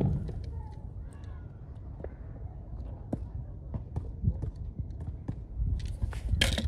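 Low, uneven rumble of handling noise on the microphone, with scattered faint clicks of small die-cast toy cars being handled, and a louder rushing scrape near the end.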